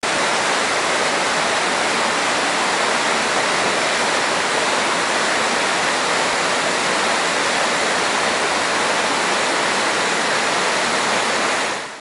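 Kempty Falls, a waterfall over rocks, giving a loud, steady rush of falling water that drops away abruptly at the very end.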